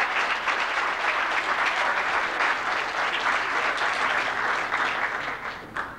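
Congregation applauding, many hands clapping at once, dying away near the end.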